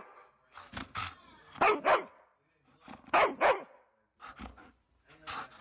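Half-husky dog barking close up in short bursts, mostly in pairs, several times.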